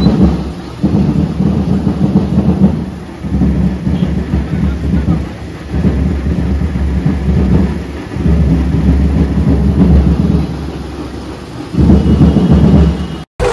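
Very loud, distorted bass from a DJ loudspeaker system, booming in surges of a second or two with short dips between.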